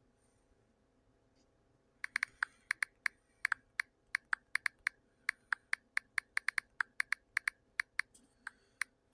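A quick, irregular run of sharp clicks, about four a second, starting about two seconds in and stopping shortly before the end.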